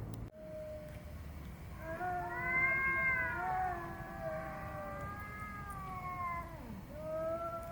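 A cat meowing in long, drawn-out calls: a short note at first, then one call of about five seconds that wavers and drops in pitch at its end, and another long call starting near the end.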